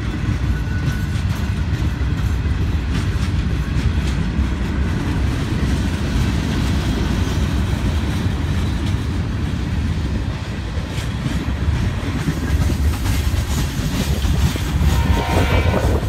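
Mixed freight cars of a passing freight train (tank cars, coil cars, covered hoppers) rolling by close at steady speed, with a continuous rumble of steel wheels on rail and the clickety-clack of wheels over rail joints. A high-pitched squeal comes in near the end.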